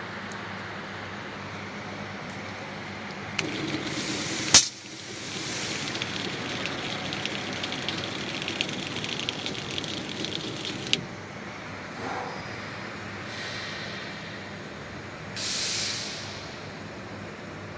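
Fiber laser cutting machine at work: a steady machine hum, then a jet of assist gas hissing with a fine crackle for about seven seconds while it cuts, opening with one sharp click and stopping abruptly. A short puff of gas hiss follows near the end.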